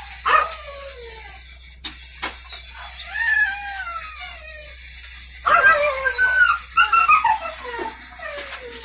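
Dogs whining and howling in long falling cries, a few at a time, in two spells, the second louder, with two sharp knocks about two seconds in.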